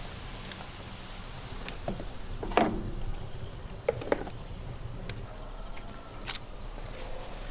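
Wood fire burning in a metal stove's firebox: a few sharp crackles and knocks over a faint steady hiss. The loudest is a ringing knock about two and a half seconds in.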